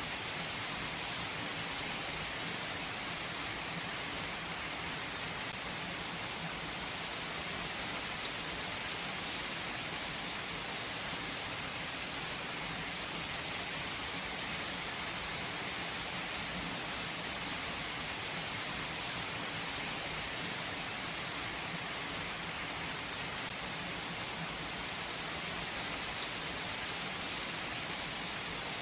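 Steady rain falling and pattering on a surface, with an occasional louder single drop.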